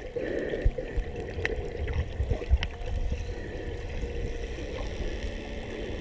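Muffled underwater water noise as heard by a submerged camera: a steady low rumble and rush with scattered short clicks and pops.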